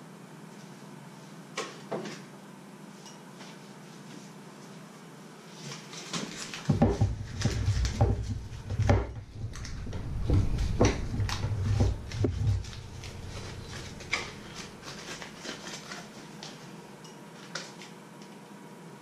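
Kitchen handling noises: a couple of clicks, then about six seconds of dull thumps and knocks on a wooden chopping board with the crinkle of a foil butter wrapper being opened, then lighter scattered clicks of a knife working the butter.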